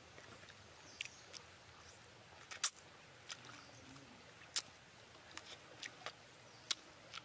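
Close-up mouth sounds of a person eating cooked fish with her fingers: wet lip smacks and chewing clicks at irregular intervals, the loudest about two and a half seconds in, with fingers sucked clean near the end.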